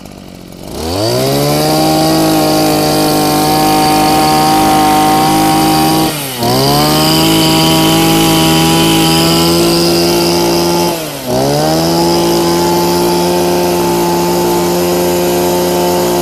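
Maruyama 26cc two-stroke brush cutter engine revving up from a low run to full throttle and holding there. The throttle is let off briefly and opened again twice, about six and eleven seconds in.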